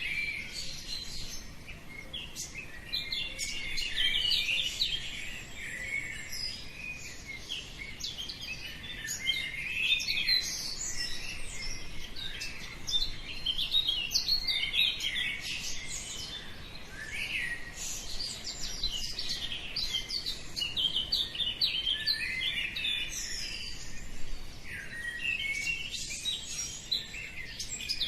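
A chorus of many small birds chirping and singing at once, dawn-chorus style: a dense, unbroken stream of short, high overlapping chirps and trills.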